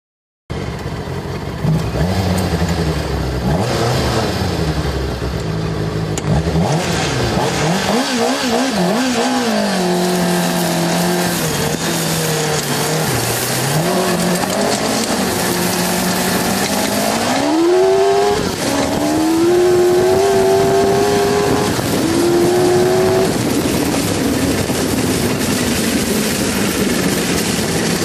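Kawasaki ZX-6R inline-four motorcycle engine in a homebuilt off-road buggy, running under way, its pitch rising and falling as the throttle is worked, with a sharp climb about two-thirds of the way through. A steady rushing hiss lies beneath it.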